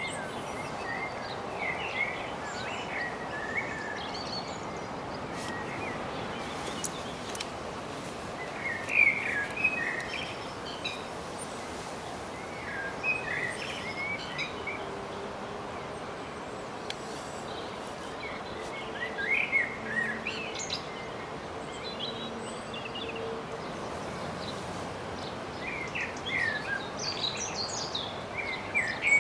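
Bird song in short chirping phrases every few seconds, over a steady background hiss.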